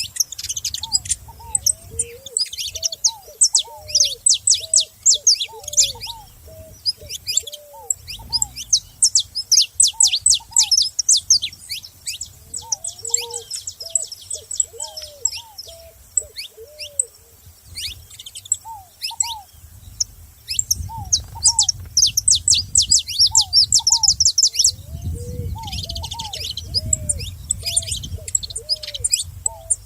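Saffron finches chirping in rapid high-pitched runs, several birds at once, with short pauses. Under them runs a slower series of short lower whistled notes from another bird.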